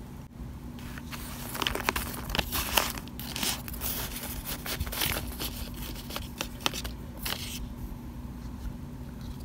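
Plastic spoon scooping and pressing through crumbled baked cornstarch chunks in a glass bowl: a dense run of crunching and crackling that eases off near the end.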